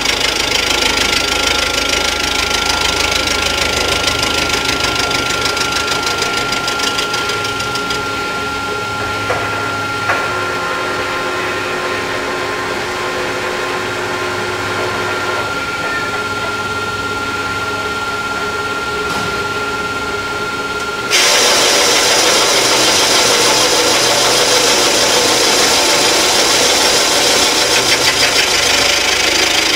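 CNC milling machine's end mill cutting the engine block's head-gasket deck around a water hole, circular-interpolating the hole for repair: a steady high whine under a scraping cutting noise. About two-thirds of the way through, the cutting noise abruptly becomes louder and harsher.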